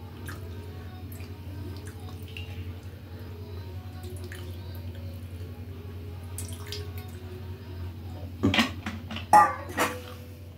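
Golgappa water pouring in a thin stream from a steel bowl into a steel plate, over a steady low hum. A few short, louder sounds break in near the end.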